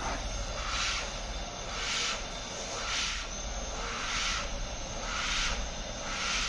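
Breas Vivo 2 BiPAP ventilator running just after being started, its air flow hissing and swelling about once a second as it cycles pressure.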